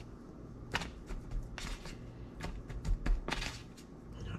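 Hands handling seasoned fish fillets and paper plates while dredging the fillets in flour: a scatter of soft taps, pats and brief rustles, roughly one every half second.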